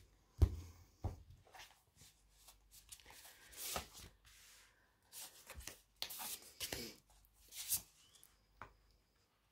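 Tarot cards handled and dealt: the deck is tapped and cards are slid off and laid down on a cloth-covered table, a string of soft irregular slaps and swishes.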